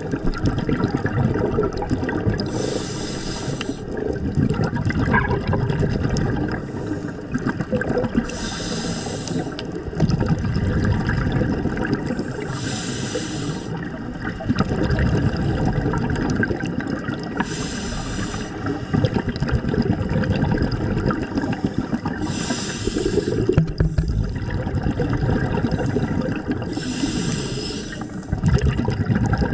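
Scuba diver breathing through a regulator: six slow breaths, each a hiss lasting about a second and a half, with exhaled bubbles gurgling in between.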